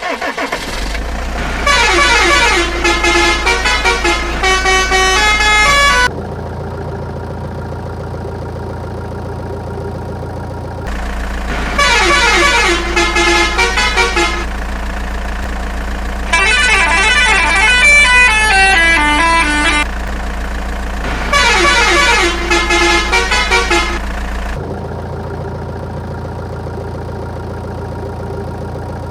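Short electronic melody phrases, bright and horn-like, repeat four times, each a few seconds long, over a steady low hum.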